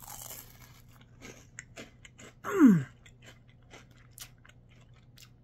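A crunchy churro fry bitten and chewed, with a crisp bite at the start and short crunching clicks throughout. About two and a half seconds in, the eater gives a short, loud hum of approval that falls in pitch.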